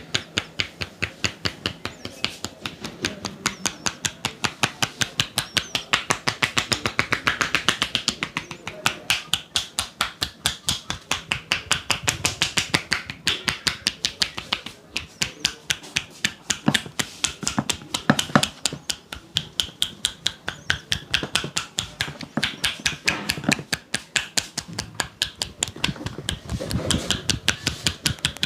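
Barber's hands tapping and slapping on a head in a percussive head massage: a fast, even run of sharp slaps, about five a second, some louder than others.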